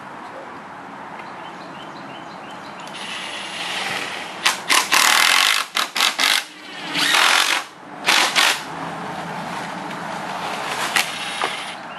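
Cordless drill driving screws through the aluminium rail of synthetic palm thatch into a wooden rafter. It runs in several short, loud bursts about halfway through, with one more brief run near the end.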